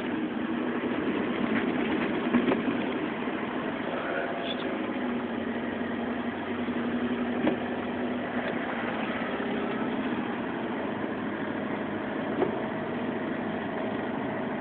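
Steady engine and tyre noise of a car driving on a snow-covered road, heard from inside the cabin, with a few brief light knocks.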